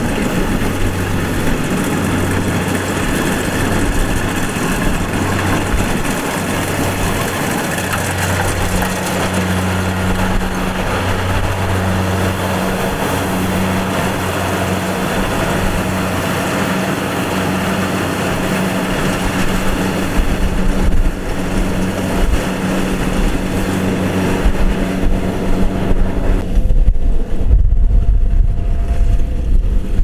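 Kubota DC-70 combine harvester's diesel engine and threshing machinery running steadily, a loud machine drone with a pulsing low hum. Near the end the higher sounds fall away, leaving a low rumble of wind on the microphone.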